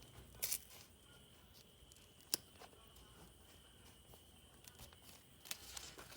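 Quiet handling of paper pieces: a short rustle about half a second in and one sharp tap a little over two seconds in, over a faint steady high-pitched hum.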